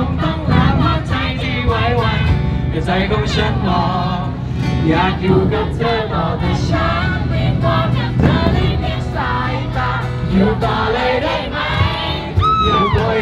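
Live street performance: a singer with an acoustic guitar, and a crowd of voices singing along. A single high rising-and-falling call cuts through near the end.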